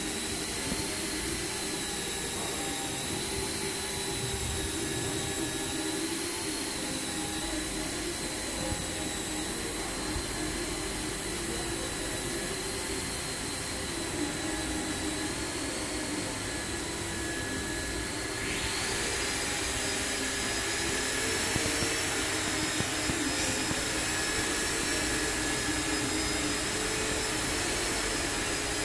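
Steady whirring machinery noise with a high whine over a low hum. About 18 seconds in the sound turns brighter and the whine steps up higher.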